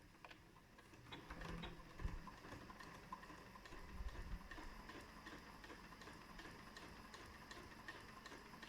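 Elna Excellence 720Pro sewing machine stitching along a collar: a faint, regular ticking of the needle mechanism, with a couple of soft low knocks in the first half.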